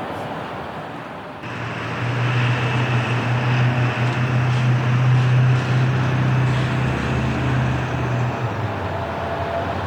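A ferry's engines running with a steady low drone that comes in abruptly about a second and a half in, grows louder, and drops in pitch near the end.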